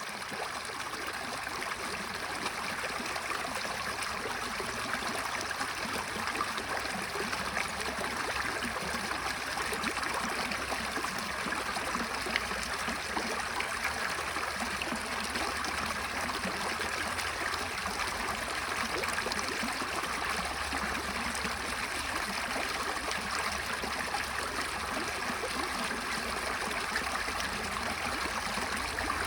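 A brook flowing steadily through a culvert, with a constant rushing and gurgling of water.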